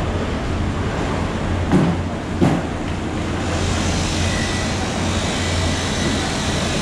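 Steady low rumble and hiss of market background noise, with two sharp knocks a little under a second apart about two seconds in as a large fish on a plastic tray is handled.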